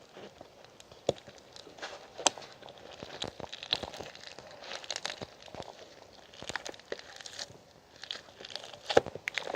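Irregular crinkling and crunching handling noises with scattered sharp clicks, the loudest click near the end.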